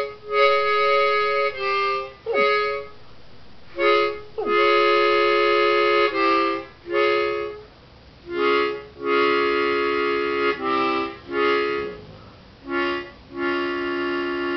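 Harmonica played in held chords and short phrases. A dog gives two brief moans that fall in pitch, about two and four and a half seconds in.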